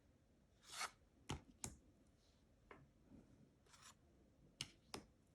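Tarot cards being handled in a flip-through: a couple of soft paper slides and four light, sharp card clicks, all faint.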